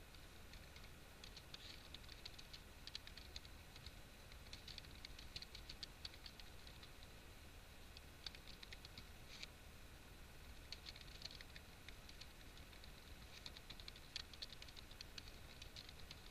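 Faint typing on a computer keyboard: quick runs of key clicks in several short bursts, with pauses between them.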